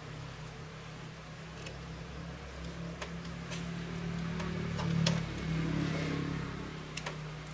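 A motor running steadily with a low hum, swelling louder about five seconds in, with scattered light clicks over it.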